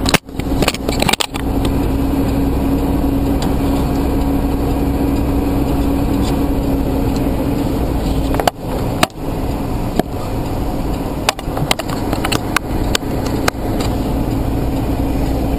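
Steady drone of a car-carrier truck's engine and road noise, picked up by a camera mounted outside on the hood, with a constant low hum and scattered knocks and crackles from wind and the mount.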